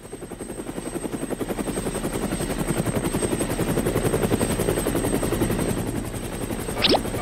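Cartoon helicopter sound effect: a fast, even rotor chop that swells in over the first two seconds and then holds steady. Near the end a run of quick rising chirps, a few per second, starts over it.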